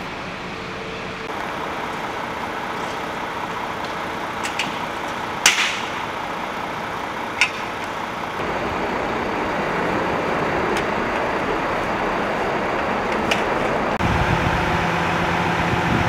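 Vehicle engines idling: a steady hum that shifts in tone a few times. A few short, sharp clicks or knocks come around the middle.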